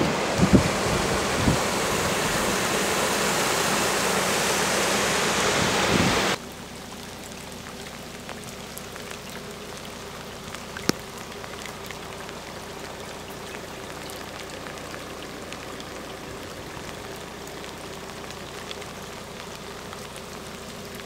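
Floodwater rushing across a road crossing, loud and steady, with a few low thumps on the microphone near the start. About six seconds in it cuts to a quieter steady hiss of rain falling on standing floodwater, with a single sharp click about eleven seconds in.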